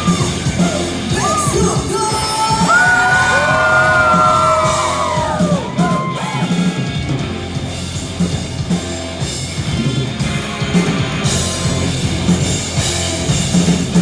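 Live rock band playing loud, with a woman singing long, held notes that bend up and down over the drums and bass in the first half, and the band carrying on after.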